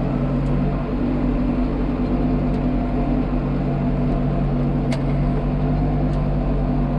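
Tractor engine running steadily under load while pulling a heavy disc harrow through ploughed ground, heard from inside the cab. A sharp click comes about five seconds in.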